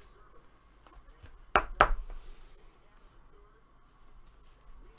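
Panini Prizm basketball trading cards being handled and flipped, with a faint rustle and two sharp snaps close together about a second and a half in.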